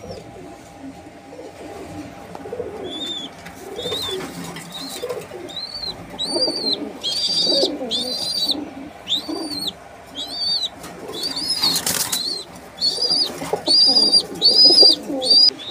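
Homing pigeons in a loft cage cooing softly, with a series of short high peeps about two a second from about three seconds in, and a brief flutter of wings near twelve seconds.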